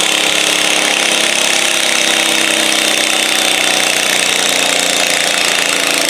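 Stock garden tractor's engine running hard under full load as it drags a weight-transfer pulling sled, dipping slightly in pitch near the end.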